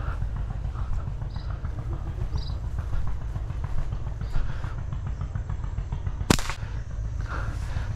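A single sharp gunshot about six seconds in, over a steady low rumble.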